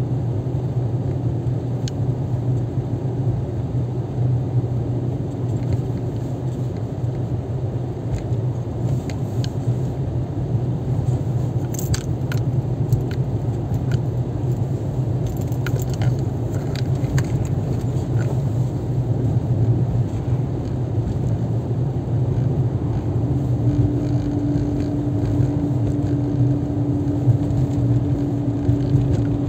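Car driving along a road: a steady low drone of engine and tyres. In the middle come a scatter of light clicks and rattles, and near the end a steady hum joins the drone.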